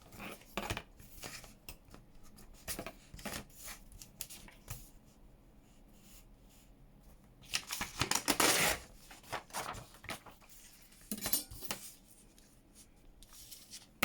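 Paper and card being handled at a craft table: small scattered clicks and knocks, with a louder rasping stretch lasting about a second and a half just past the middle.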